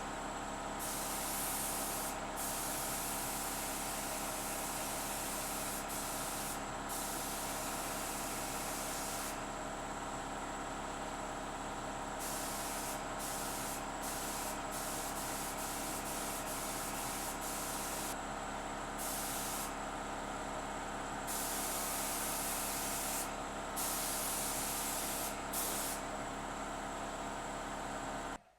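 Hyundai HY3150S 150-litre air compressor running steadily under load, its 2.2 kW electric motor and pump humming. Over it an HVLP spray gun hisses, starting and stopping in short and long passes as the trigger is pulled and released.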